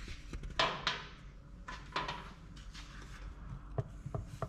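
Scattered light knocks and clicks as hands grip and tug at a dirt bike's engine side cover, which does not come off because one bolt is still in.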